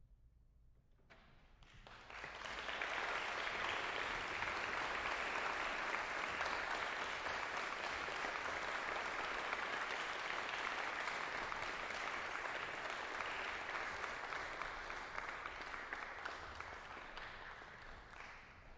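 Audience applause: about a second of near quiet, then clapping that swells within a second and holds steady, easing off slightly near the end.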